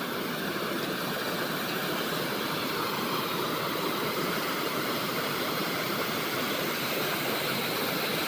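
A river in flood pouring over a concrete weir: a steady rush of falling, churning water.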